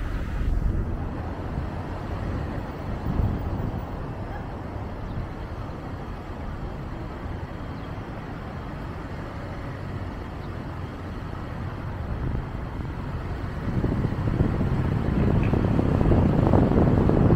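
Road noise of a moving car: a steady low rumble of tyres and engine. About three-quarters of the way through, a gusty rumble of wind on the microphone builds and grows louder.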